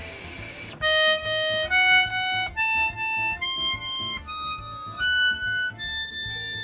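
Button accordion with two sets of treble reeds (MM) sounding one held note at a time, about eight notes stepping up and down in pitch, after a brief breathy hiss at the start. The notes sound wrong or fail to speak properly, the sign of reed-valve leathers that have curled up and lifted off the reeds.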